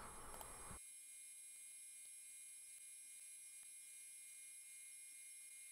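Near silence: faint steady high-pitched tones over a low hiss, after a brief stretch of faint room noise that cuts off under a second in.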